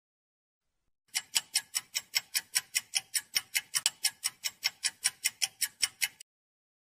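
Rapid, even ticking at about five ticks a second, clock-like. It starts about a second in and cuts off suddenly shortly before the end.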